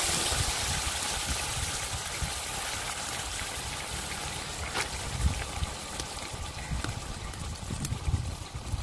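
Raw beef pieces sizzling in hot oil in a large aluminium karahi: a steady frying hiss, loudest at first and slowly fading, with a few sharp spatters along the way.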